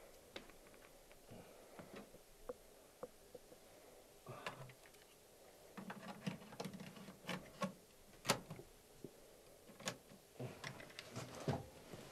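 Scattered small clicks, knocks and rustles of hands handling objects at a portable cassette tape recorder, in irregular clusters, with one sharper click about eight seconds in.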